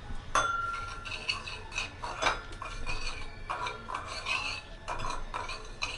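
A spoon stirring and scraping lemon juice and sugar around a small pan in repeated strokes, the sugar not yet dissolved.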